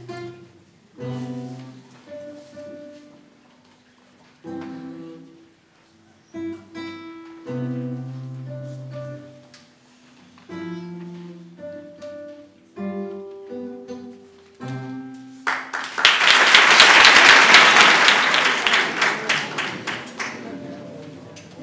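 Solo classical guitar playing a slow piece in plucked notes and short phrases, with pauses between them; the piece ends about fifteen seconds in. The audience then applauds loudly for about five seconds, which fades out near the end.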